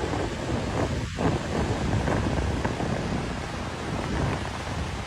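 Fast-moving floodwater rushing, a steady dense noise, with wind on the microphone.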